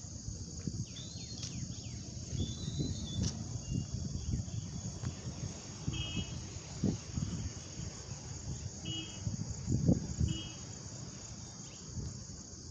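Steady, high-pitched chorus of crickets, with a few short chirps from another animal and uneven low rumbling underneath.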